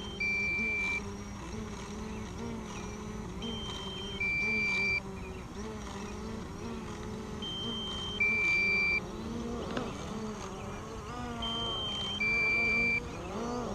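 Small DJI quadcopter's propellers buzzing close by, the motor pitch wavering as the drone hovers and shifts, with the aircraft at about 15% battery. Over it, a two-note electronic warning beep repeats about every four seconds: a short higher tone, then a longer lower one, the kind of alarm that sounds on a low battery.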